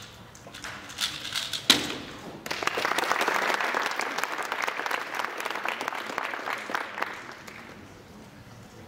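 Rapid clicking of a 3x3 speedcube being turned, then a sharp slap about 1.7 seconds in as hands come down on the Speed Stacks timer to stop it. About a second later applause starts, lasts about five seconds and fades out.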